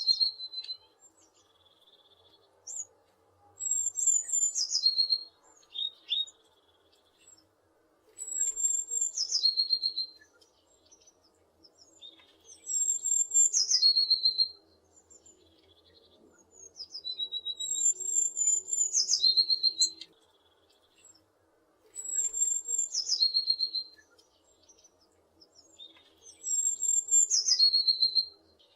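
A tit singing: a phrase of rapid, high, chirping notes that drops in pitch, lasting about two seconds, repeated about seven times with short pauses between.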